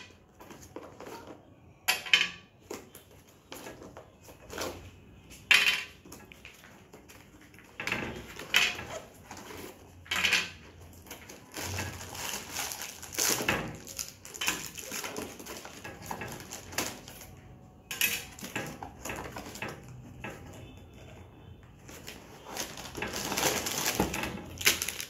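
Hard plastic toy track pieces clicking and clattering onto a glass tabletop as they are taken out of a cardboard box, with packaging rustling. Near the end there is a longer stretch of rustling as a plastic bag of parts is handled.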